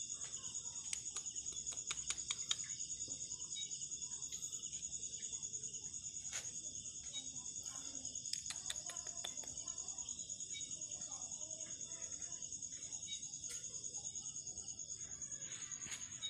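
Insects trilling: a steady, high-pitched, fast even pulsing, with a few faint clicks.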